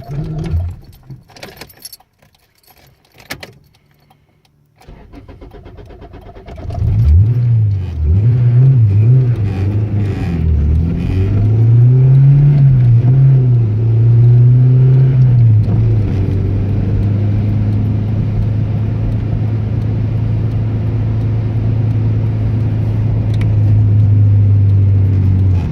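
Keys jangling and clicking, then a Honda Civic's GSR engine cranks and catches about six seconds in. The revs rise and fall unevenly for several seconds before it settles into a steady idle. This car has a hard-starting problem.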